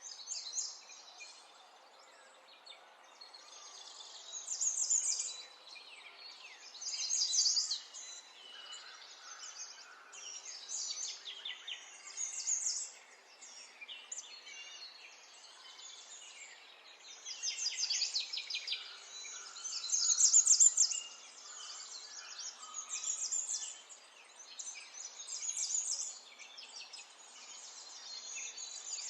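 A pet parrot chirping and chattering in short bursts of rapid high-pitched calls every few seconds, with a faint steady background between them.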